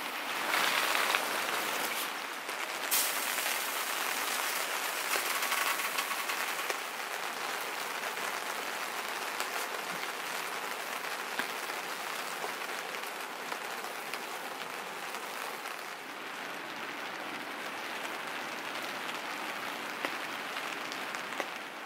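Rain falling steadily on the fabric of a Pomoly dome hot tent, heard from inside, with a few louder rushes of water in the first seven seconds.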